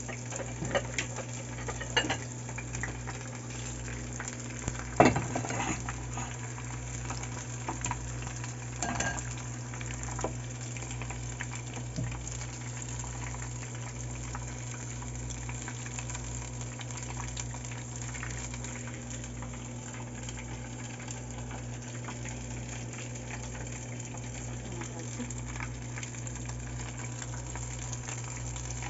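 Crab-shrimp rangoon wontons deep-frying in hot vegetable oil, a steady sizzle throughout. Several sharp clicks come in the first dozen seconds, the loudest about five seconds in.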